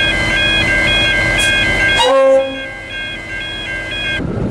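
A train horn gives one short, loud toot about two seconds in, over a steady, rapidly alternating two-note electronic ringing. Near the end the ringing cuts off abruptly, leaving rumbling rail noise.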